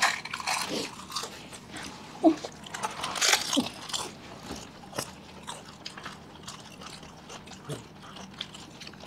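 Close-up crunching and chewing of fuchka (pani puri): crisp hollow puri shells cracking between the teeth, then wet chewing, in irregular bites. The loudest crunches come right at the start and again about two seconds in.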